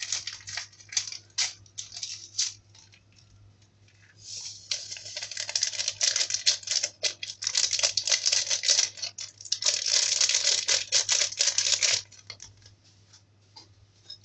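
Paper sachet of vanilla powder being torn open and crinkled by hand, a crackly rustle in quick bursts at first, then louder and denser from about four seconds in until shortly before the end.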